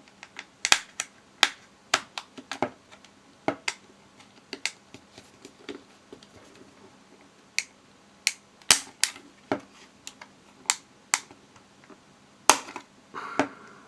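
Plastic parts of Wahl 9655 hair clippers being handled and pried apart: a string of irregular sharp clicks and snaps with a pause in the middle and a short scrape near the end.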